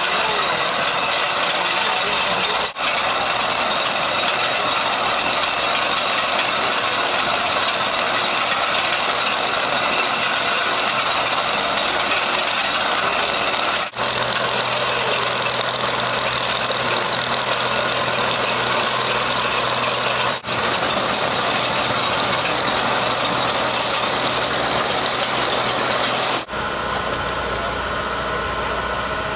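Farm machinery engines running steadily, heard as a series of short clips, with a brief dip in sound at each of four cuts.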